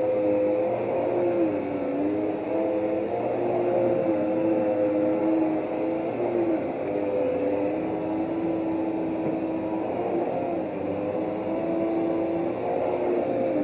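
Vacuum cleaner motor running steadily with a high whine over it, its pitch dipping slightly and recovering a few times as the load on it changes.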